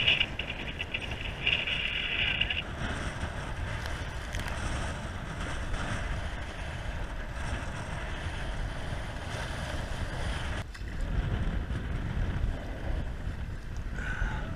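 Strong wind rumbling on the microphone, with choppy lake waves washing and splashing around a wooden sea kayak. A brighter rushing hiss sits on top for the first couple of seconds.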